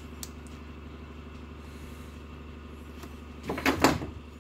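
Hand-handling of a metal worm-drive hose clamp being slid onto a rubber hose, with a few sharp clicks and knocks about three and a half seconds in. A steady low hum runs underneath.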